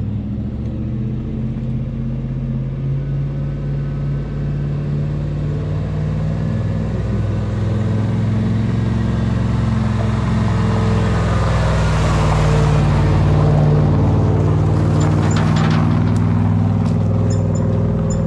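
Pickup truck engine running as it tows a loaded flatbed car trailer up a gravel driveway and past, growing louder toward the middle. Tyres crunch on gravel near the end.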